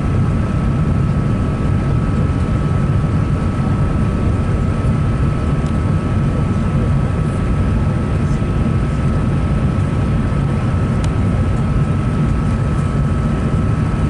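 Airbus A380 engine and airflow noise heard from inside the passenger cabin: a steady deep rumble with a constant high whine running over it.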